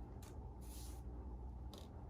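Faint handling noises, a few short rustles and a brief soft hiss, over a low steady hum.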